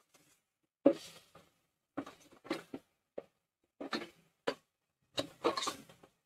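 Steel spoon scraping and knocking against a steel pressure-cooker pot while stirring meat frying in oil with onions and spices, in about nine short strokes with brief quiet gaps between.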